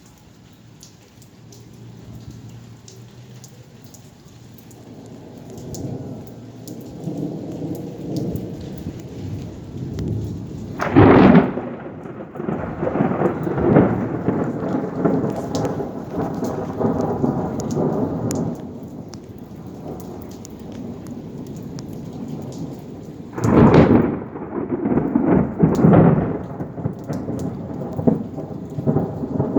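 Thunderstorm: a rumble builds, then two sharp thunderclaps, one about a third of the way in and one about two-thirds through, each followed by several seconds of rolling thunder. Rain patters throughout.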